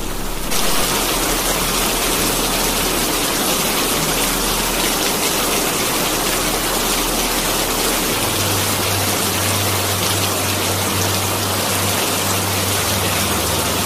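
Steady, heavy rain falling, a continuous hiss of rain; a low steady hum joins about eight seconds in.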